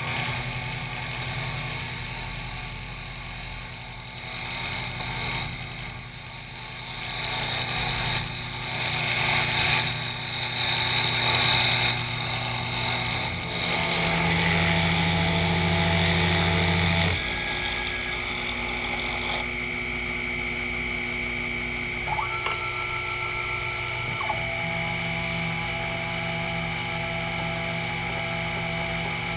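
Sherline CNC mill drilling holes in an aluminium plate: a loud, steady high-pitched squeal from the drill bit cutting for about the first thirteen seconds, then it cuts off to a lower hum from the running machine, which grows quieter, with a short steady tone a little past twenty seconds. The squeal is the weird noise this bit makes when it is not kept lubricated.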